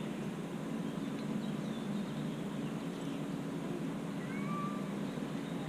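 Cat stuck high in a tree meowing faintly, a couple of short calls near the end, over a steady low hum.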